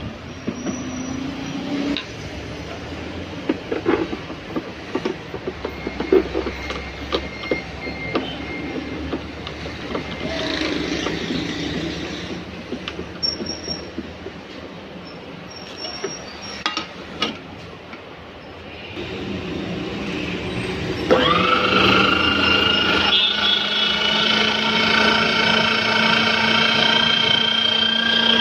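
Parts of a Geepas GMG746 electric meat grinder clicking and knocking together as the metal grinding head, cutting plate and locking knob are fitted. About three-quarters of the way in, the grinder's motor switches on, spins up within a moment and runs with a steady whine.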